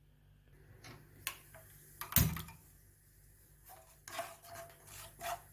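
A few light clicks of kitchen utensils, then one loud knock about two seconds in, the loudest sound here. From about four seconds in a spoon stirs a mixture of coconut milk, palm sugar and pepper powder in a pan, scraping at about three strokes a second.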